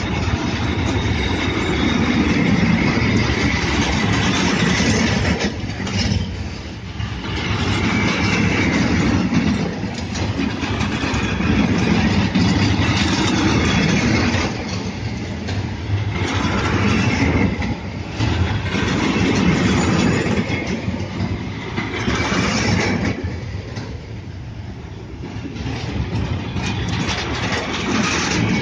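Freight train of container flat wagons rolling past close by: a steady rumble of steel wheels on the rails that swells and eases in slow waves as the wagons go by.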